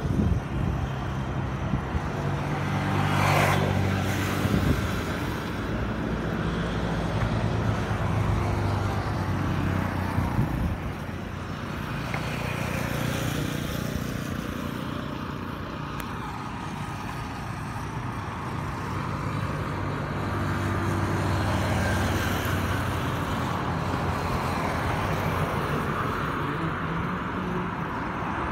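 Road traffic on a multi-lane highway: vehicle engines running and tyre noise swelling and fading as cars pass, with one vehicle passing close about three seconds in.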